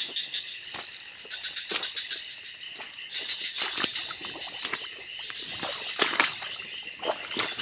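Night insect chorus, crickets and other insects trilling steadily and high. Scattered rustles and snaps of someone pushing on foot through undergrowth break in, loudest about six seconds in.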